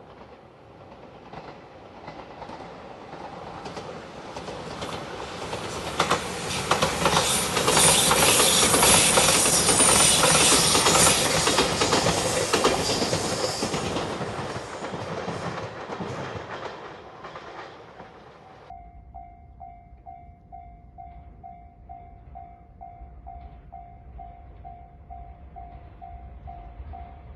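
An electric limited express train passing over a level crossing: it grows louder, its wheels clatter over rail joints as it goes by, and the sound fades away. After an abrupt change near the end, a level-crossing warning bell rings steadily at about two strokes a second.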